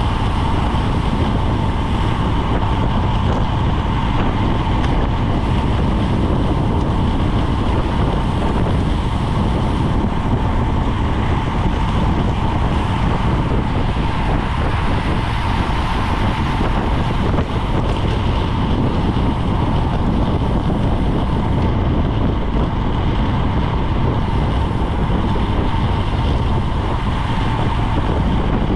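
Steady wind rush buffeting a GoPro's microphone on a bicycle at racing speed, dense and strongest in the low end, with a faint steady high hum above it.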